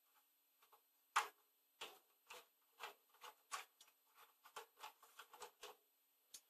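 Screwdriver turning out a screw in the bottom of a Hameg HM303 oscilloscope's case: a string of quiet clicks, one louder about a second in, then about two a second, coming quicker from about four seconds in.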